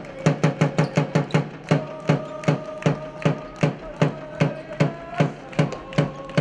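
Spectators' cheering drums beating a fast, steady rhythm of several strokes a second, with a held tone sounding over the beats.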